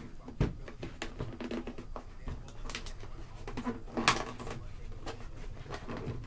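A cardboard trading card box handled on a desk: rustling with light knocks and clicks, the sharpest about half a second in and another about four seconds in.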